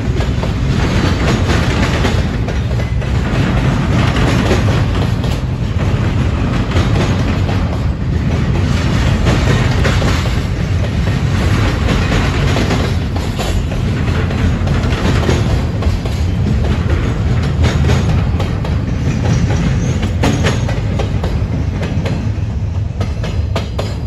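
Double-stack intermodal container train rolling past at close range: a steady rumble with repeated clacking of wheels over rail joints, easing slightly near the end as the last cars go by.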